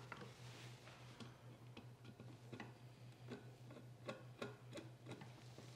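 Faint, irregular clicks and ticks of a screwdriver turning the screws that fasten the wooden tote to a cast-iron Stanley Bedrock hand plane body, over a steady low hum.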